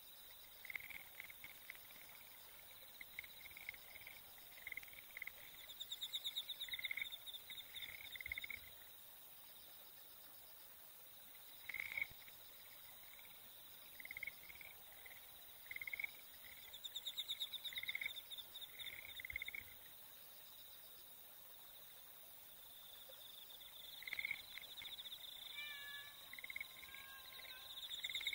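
Faint nature ambience of small animal calls: clusters of short repeated chirps and buzzing trills with quiet gaps between them, and a few whistled glides near the end.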